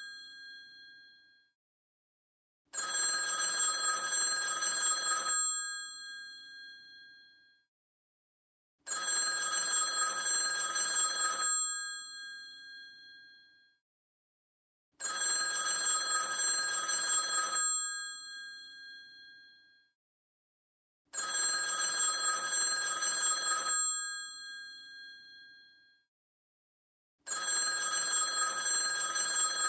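Vintage telephone bell ringing in the classic cadence: rings about two and a half seconds long repeating about every six seconds, each one trailing off into a fading ring before silence.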